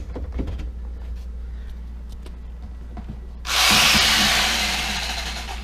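Corded power saw switched on briefly about three and a half seconds in, starting suddenly and fading away over about two seconds. It is being run from a newly wired outlet to show that the outlet is live.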